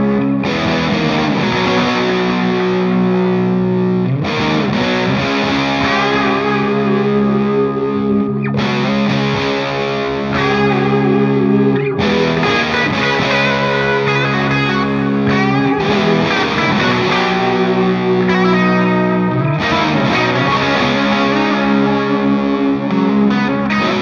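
Distorted electric guitar riffs from a Gibson Les Paul through a Laney LA30BL amp and a Celestion 65 Creamback speaker, recorded as one boosted and one straight amp track. Chords are held and let ring, changing about every four seconds, with a busier passage in the middle.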